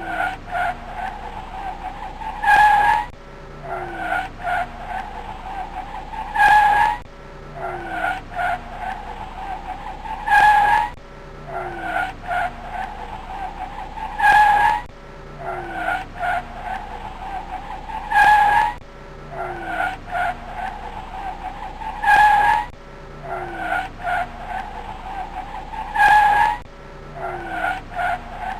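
Car sound effect looping about every four seconds: a falling low engine note under a steady high tone, swelling to a loud peak at the end of each cycle.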